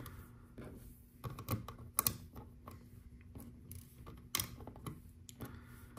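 Small round plastic LEGO pieces clicking as they are pressed onto the studs of a baseplate and picked from loose pieces on the table: light, irregular clicks, the sharpest about two seconds and four and a half seconds in.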